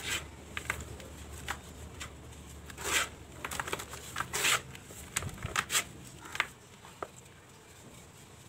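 Dry, crumbly clumps of red dirt and cement crushed in the hands, giving irregular gritty crunches and crackles as the powder sifts back into the tub. The crunches come thickest in the middle and thin out near the end.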